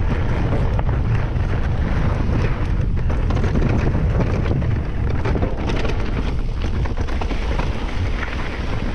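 Wind buffeting the camera microphone over the rattle and crunch of mountain-bike tyres on a rough forest trail, with many small clicks and knocks from the bike.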